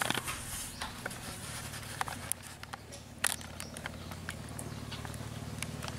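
Water splashing and dripping in a plastic tub as a baby macaque moves about in it, with scattered sharp clicks. A steady low engine hum runs underneath and grows louder near the end.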